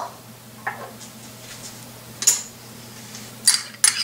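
A few light clinks and taps of a spoon and bowl against an aluminium pressure cooker as ingredients are added, a cluster of quick clinks near the end, over a faint steady hum.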